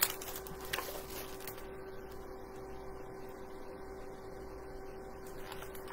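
Quiet room tone: a steady hum with one constant tone, and a few faint ticks in the first second and a half.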